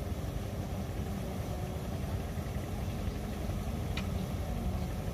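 Kubota M6040SU tractor's diesel engine idling steadily, with a single short click about four seconds in.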